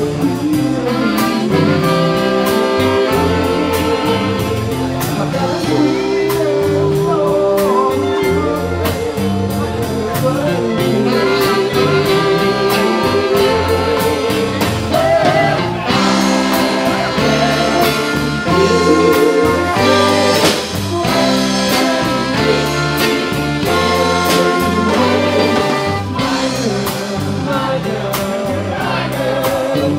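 Live band playing with a horn section (trumpet and saxophone), a singer, drums and guitar, the brass lines and vocals over a steady drum beat.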